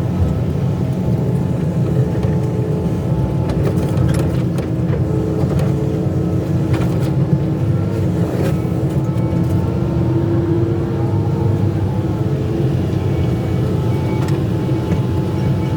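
Excavator's diesel engine running steadily under work, with a steady whine over the low rumble and a few sharp knocks partway through.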